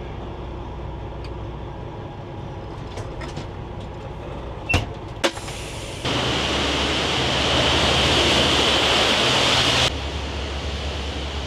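A steady low engine hum with two sharp clicks about five seconds in, then a loud hiss for about four seconds that cuts off suddenly and is followed by a quieter hiss.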